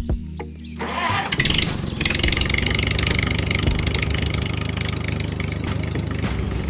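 A small engine cranks and catches about a second in, then keeps running steadily.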